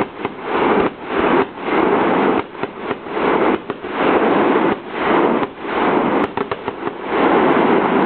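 Fireworks going off: a loud, rough noise of bangs and crackling that swells and keeps breaking off in quick short drops.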